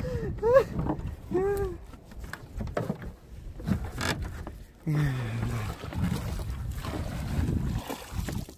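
Men's short excited shouts over water and wind noise in a small wooden fishing boat. A single sharp knock comes about four seconds in, then low voices.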